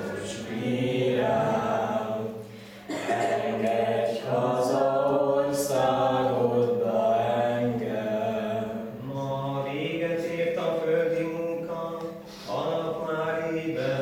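Unaccompanied voices singing a slow chant-like song in long held notes, in phrases with short breaks between them.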